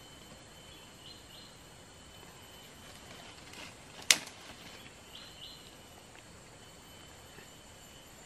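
Forest ambience with a faint steady high tone and a few short bird chirps. About four seconds in comes one sharp snap, much louder than everything else, while thin sticks are being laid by hand over a snare trigger.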